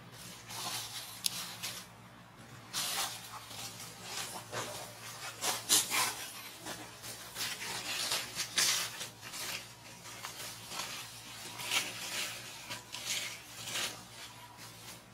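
Dry leaf litter crackling and rustling in irregular bursts as a baby macaque moves over it.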